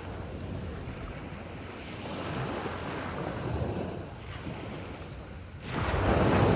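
Sea waves washing on a beach, a steady surf hiss that swells and eases. Near the end a bigger wave surges in, sharply louder.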